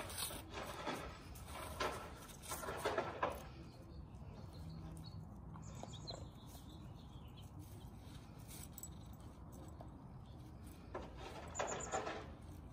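A dog snuffling and rummaging at a rubber lattice ball stuffed with paper-wrapped food, pulling paper out of it. Short bursts of rustling come several times in the first three seconds and again near the end, with a quieter stretch between.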